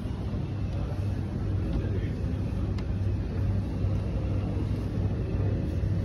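Steady low rumble of background noise, with no distinct events.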